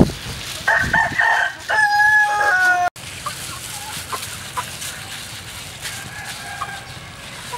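A rooster crowing loudly: a few short broken notes, then a long held final note, cut off suddenly about three seconds in. A fainter chicken call follows near the end.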